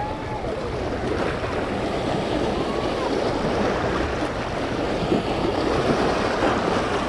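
Small waves of a bay washing and splashing against the rocks of a seawall, a steady rush of water noise with wind buffeting the microphone.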